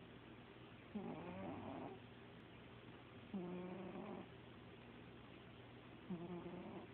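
A sleeping pet snoring: three snores about two and a half seconds apart, each lasting under a second.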